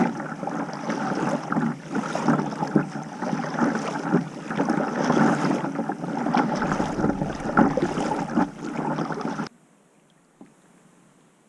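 Water splashing and sloshing around a kayak, with many irregular small knocks, which cuts off abruptly near the end, leaving near silence.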